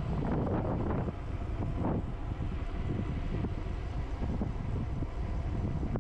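Wind buffeting the microphone while riding: a steady low rumble with irregular gusty crackles and no clear pitch.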